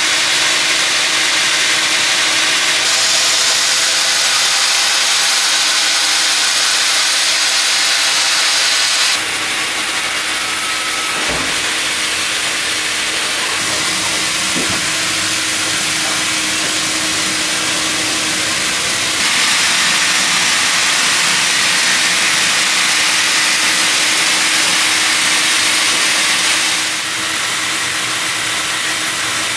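Sawmill band saw and log carriage running, a steady hiss of the blade cutting through a log over a continuous machine hum. The sound shifts abruptly in level and tone a few times.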